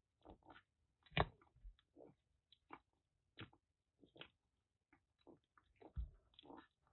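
Two kittens licking and chewing paste from a squeezed lickable-treat tube: soft, irregular wet licks and smacks, with two louder bumps, one about a second in and one near the end.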